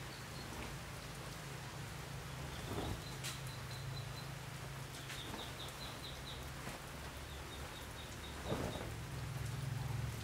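Trousers being handled and spread on an ironing board: cloth rustling with a few soft knocks, over a steady low hum. A run of faint high chirps comes through in the middle.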